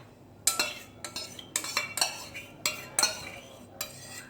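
A spoon clinking and scraping against a bowl and container in a quick irregular series of a dozen or so sharp knocks and scrapes, as thick cream is spooned into a bowl.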